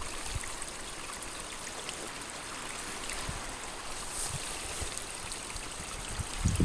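Steady, even rush of water with no breaks.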